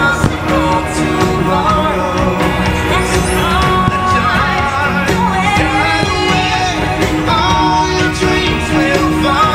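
Upbeat pop-rock song with a singing voice and a steady beat.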